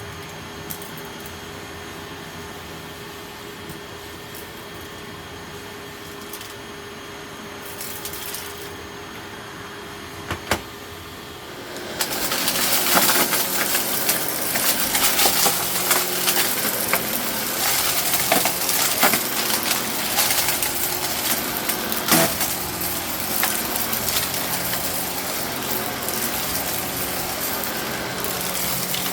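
Eureka Innova upright vacuum running steadily with a faint hum and an odd click. About twelve seconds in, a much louder dense crunching rattle starts and keeps going: aquarium gravel being picked up by the brushroll and rattling through the vacuum.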